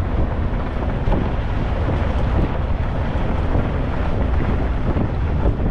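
Wind buffeting the microphone: a steady, loud rumbling rush, heaviest in the low end.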